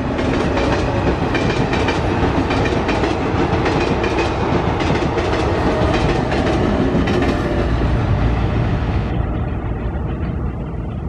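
Coaches of a DEMU (diesel-electric multiple unit) train rolling past close by, wheels clattering over the rail joints in a rapid run of clicks. About nine seconds in, this cuts off abruptly and gives way to the lower, steadier rumble of a DEMU approaching from further off.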